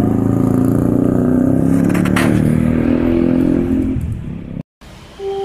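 A vehicle engine running and accelerating, its pitch rising, with a short rattle about two seconds in. The engine sound cuts off abruptly near the end.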